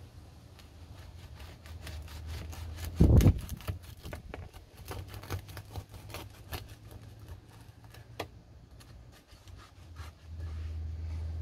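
Knife sawing through a crusty sourdough loaf on a plastic cutting board, the crust crackling and crunching in many quick strokes. One heavy thump about three seconds in is the loudest sound.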